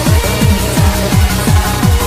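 Makina electronic dance music: a fast, steady kick drum whose pitch drops on each beat, bass-heavy, with synths layered over it.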